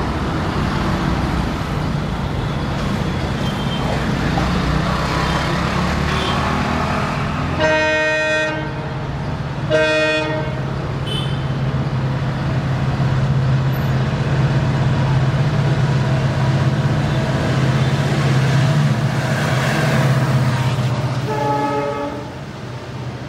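WDP4B diesel-electric locomotive, with a two-stroke EMD 710 V16 engine, running under load as it approaches, a steady low drone. Its horn gives two short blasts about eight and ten seconds in. Another brief horn blast comes near the end, followed by the sound of passenger coaches rolling past.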